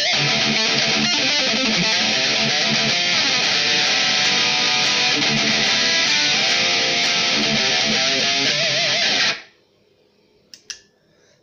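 High-gain distorted electric guitar riff played through a Mooer Micro Preamp 012, the pedal modelled on the Friedman BE-100, heard through a camera's microphone. It stops abruptly about nine seconds in, followed by a couple of faint clicks.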